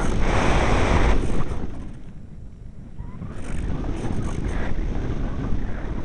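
Strong gusty wind buffeting the microphone, a rumbling rush. It is loudest in the first second, eases about two seconds in, then picks up again.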